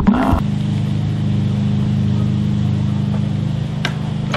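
A motor starts just under half a second in and then runs with a steady, even hum.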